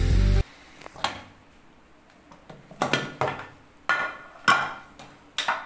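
Aluminium pressure cooker and its lid clinking and clanking as the cooker is opened, in about seven separate metal knocks. Background music cuts off just under half a second in.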